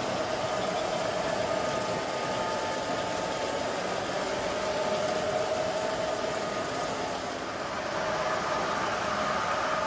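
N scale model train running on the layout: a steady thin motor whine, dipping slightly in pitch about halfway through, over a constant hiss of room noise.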